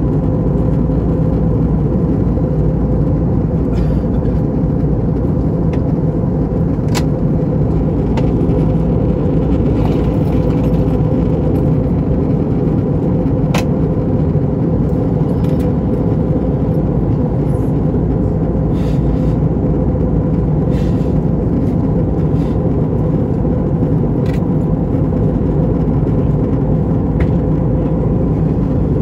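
Steady cabin roar of an Airbus A321 airliner in descent: engine and airflow noise, with a faint steady hum under it and a few light clicks.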